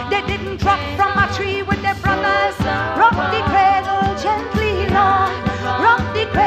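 Live calypso band music with a steady beat, with singing over it.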